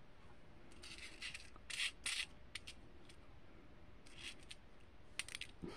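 Faint, scattered clicking and rustling of small metal jewelry findings in a clear plastic box as fingers pick through them, in short clusters about a second in and again after four seconds.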